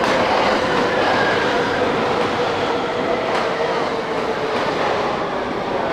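JR East E231-500 series electric commuter train pulling out of the platform and rolling past. A steady whine runs over the rolling and rail noise of the cars.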